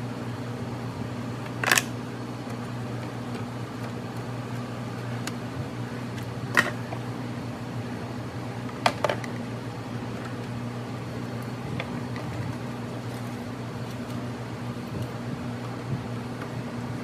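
Short plastic clicks and scrapes as a C5 Corvette fender duct and its push clips are handled and fitted by hand, a handful in all, over a steady low hum.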